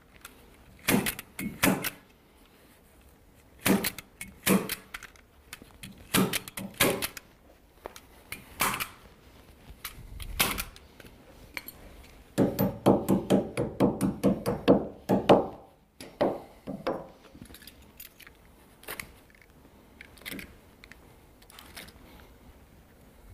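Hand stapler firing staples into pool table cloth, single sharp clicks every second or two, then about three seconds of rapid taps from a tack hammer setting the staples.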